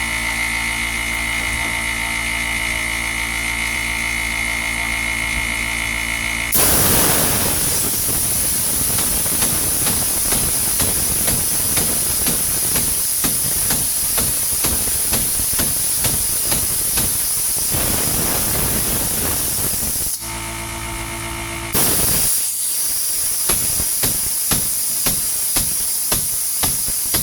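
A steady machine hum, which gives way after about six seconds to a steady hiss with light regular taps, about one to two a second. The hum comes back briefly near the end before the hiss and taps return.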